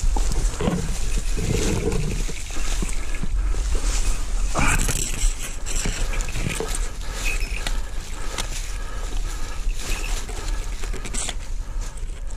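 Rustling and crackling of dry leaves and grass underfoot as someone moves quickly through leaf litter, over a steady low rumble on the microphone.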